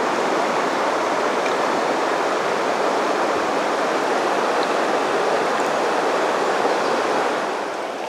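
Fast river current rushing steadily close by, easing a little near the end.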